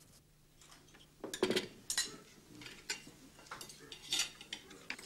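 Cutlery clinking and scraping on plates during a meal: scattered light clinks and knocks, the loudest about a second and a half in.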